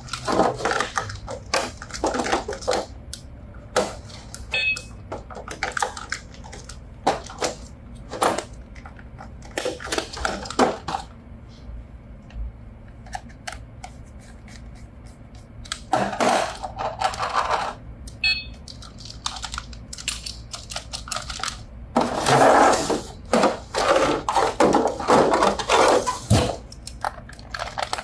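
Irregular clicks, taps and rustling of toys and their packaging being handled, with denser bursts of handling about two-thirds of the way through and near the end.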